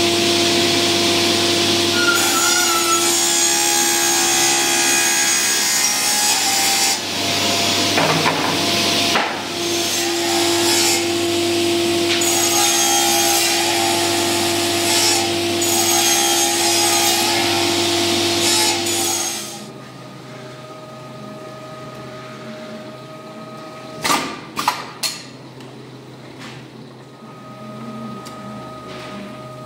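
Sliding panel saw running and cutting melamine-faced board: a steady whine over the hiss of the cut. About two-thirds of the way in it drops suddenly to a quieter steady machine hum, with a few sharp clicks.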